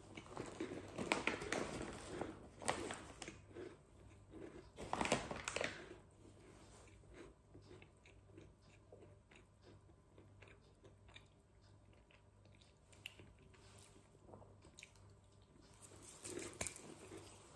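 Close-up chewing of a Mulino Bianco Intrecci wholemeal chocolate-chip biscuit: loud crunching bites in the first few seconds and again about five seconds in, then quieter, steady chewing.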